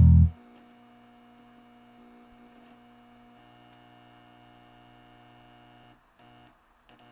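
Guitar music cutting off just after the start, followed by a faint, steady hum of several held tones that fades out about six seconds in.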